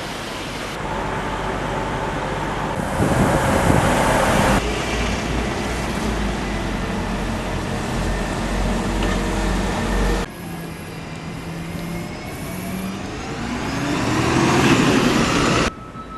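Buses, trains or trams running, heard in several short clips cut together, with steady engine hum. In the last clip a rising whine climbs in pitch and grows louder as a vehicle pulls away, then cuts off suddenly.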